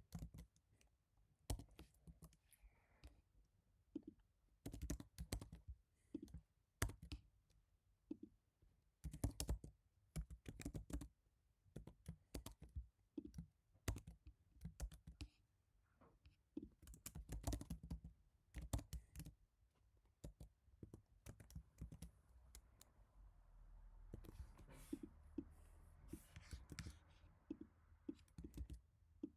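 Typing on an HHKB Professional Type-S keyboard: the muted thock of its silenced Topre keys comes in short runs of fast keystrokes with pauses between them. A soft, steady rushing noise sits under the keys for several seconds near the end.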